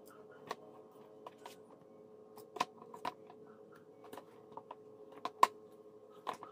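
Scattered light clicks and taps, about ten in all, of peeled boiled plantains being handled and set into a ceramic bowl, the loudest a little past five seconds in. A steady low hum runs underneath.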